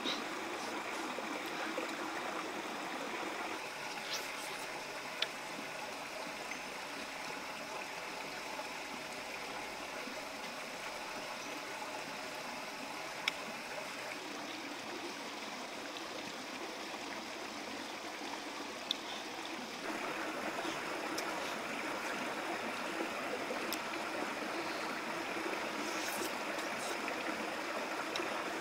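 Rocky forest stream running steadily, a continuous rush of water that grows louder about two-thirds of the way through, with a few isolated sharp clicks.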